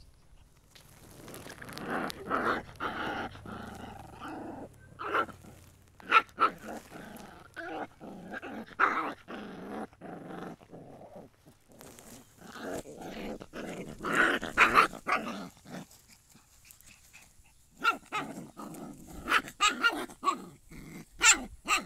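Two puppies play-fighting, growling and letting out short yips and barks in irregular bursts, with a brief lull about three-quarters of the way through.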